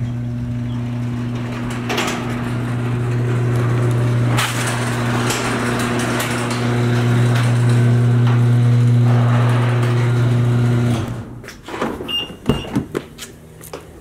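Electric garage door opener running while the door rolls up: a steady low hum that stops suddenly about eleven seconds in. It is followed by a few clicks and knocks of a car door being unlatched and opened, with two short high beeps.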